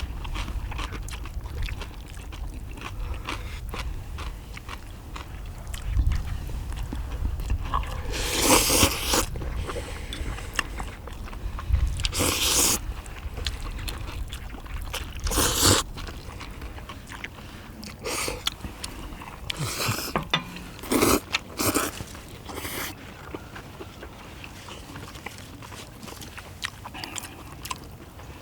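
People eating spicy stir-fried small octopus with noodles: close chewing and biting, with several short loud bursts of eating noise scattered through.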